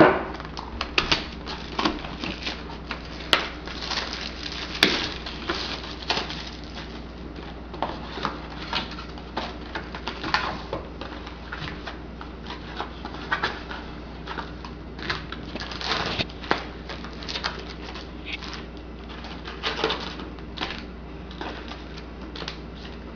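Irregular crinkling and crackling of packaging as a sealed box of trading-card packs is opened, over a steady low hum.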